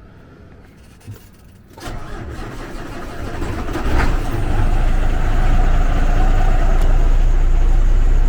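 Semi truck's diesel engine cranking from about two seconds in, catching around four seconds in, then settling into a steady idle.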